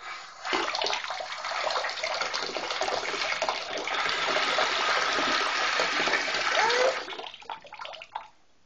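Bathtub faucet running into the tub: water is turned on about half a second in with a steady rush, shut off about seven seconds in, and trickles and drips briefly as it stops.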